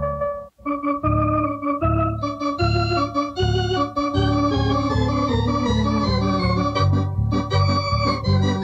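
Thomas electronic organ playing a lively tune, with chords and melody over steady repeated bass notes. The music breaks off for an instant about half a second in, then carries on. It is heard from a restored early-1970s demonstration cassette with some wow and flutter.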